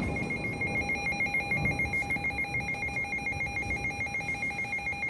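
Weather radio receiver's alert alarm: a rapidly pulsing electronic warble of high tones, about eight pulses a second, signalling an incoming NOAA Weather Radio warning.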